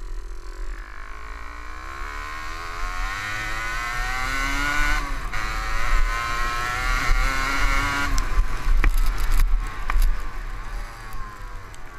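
Kawasaki KDX125 two-stroke single-cylinder engine accelerating hard: the revs climb steadily, dip briefly at a gearchange about five seconds in and climb again, then fall away after about eight seconds before picking up once more. A few sharp knocks sound around nine seconds in.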